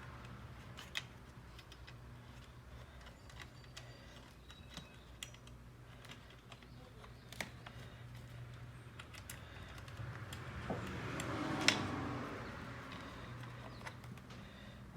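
Faint, scattered small clicks and taps of a car door handle's pin, spring and plastic handle parts being handled and fitted together, with one sharper click about three quarters of the way through. A low steady hum runs underneath.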